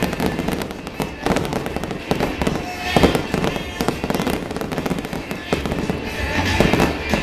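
Fireworks display: dense crackling and popping from fountains and bursting shells, with sharper bangs about a second and three seconds in.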